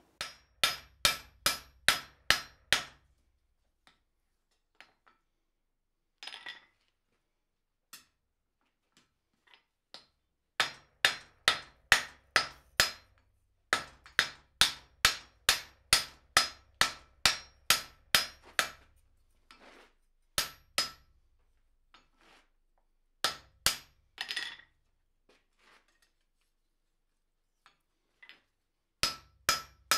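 Hammer blows on a glowing-hot steel block resting on a steel anvil, forging a bevel around its edges. The blows come in quick runs of about two to three a second, each with a short metallic ring, with pauses between the runs.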